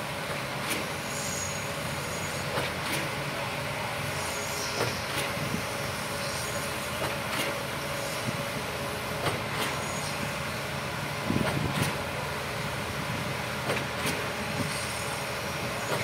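Truck-mounted concrete boom pump running while pumping concrete: a steady machine drone with a sharp knock about every two seconds, often two in quick succession.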